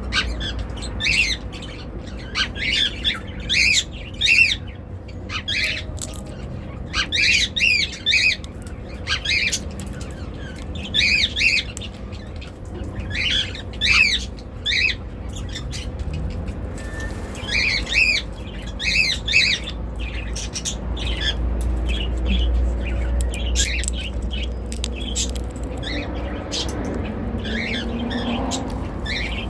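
Indian ringneck parrot giving short, repeated squawking calls in quick runs of two to four, thinning out after about twenty seconds, with thin clicks between the calls.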